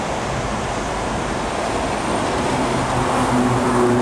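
Through passenger train hauled by an SS8 electric locomotive running along the tracks: a steady rumble with wind noise, joined about two and a half seconds in by a low steady hum as it grows a little louder.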